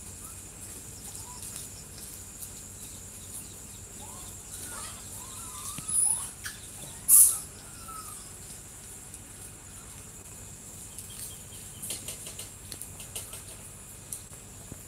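Forest ambience: small birds chirping in short rising and falling calls over a steady high insect hiss, broken by two brief louder sharp noises about six and seven seconds in.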